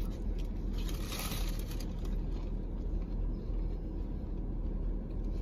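Steady low rumble of a vehicle idling, heard from inside the car's cabin, with a brief soft noise about a second in.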